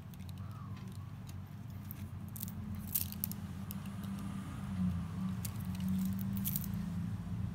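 Polished stone beads of bead bracelets clicking and clinking against each other as the bracelets are handled, in scattered light clicks with a small cluster about three seconds in, over a steady low hum.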